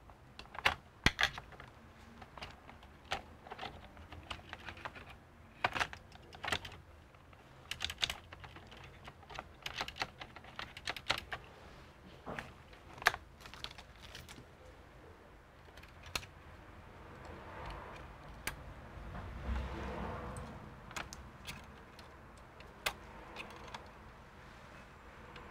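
Irregular sharp plastic clicks and taps as tools and gloved fingers work the parts inside an open Dell Alienware 15 R3 laptop's chassis. Around two-thirds through, the clicks give way to softer rustling with one dull bump.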